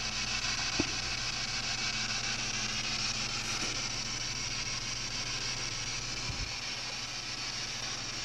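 Steady hiss of a camcorder microphone's self-noise in a quiet room, with a faint low hum underneath and one faint click about a second in.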